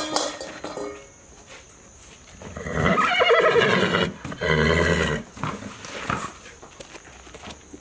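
A horse neighing: a long, wavering whinny about three seconds in, followed by a shorter, lower call.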